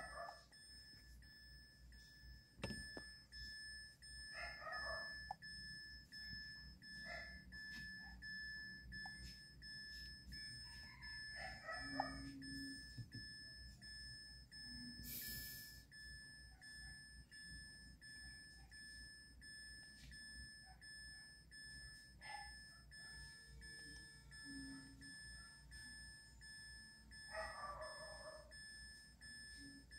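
Near silence: a faint, steady high-pitched whine with a few short, faint sounds scattered through it.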